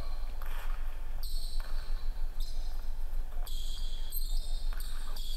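A basketball being dribbled on a hardwood gym court, with a steady low hum underneath.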